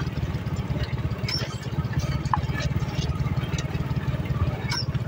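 Old motorcycle engine running at low speed, a steady rapid low putter, with scattered clicks and knocks as the bike jolts over a rough dirt track.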